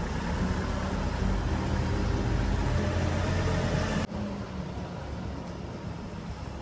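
Engine of a work vehicle idling with a steady low rumble. About four seconds in, the sound cuts off abruptly, leaving a quieter outdoor background.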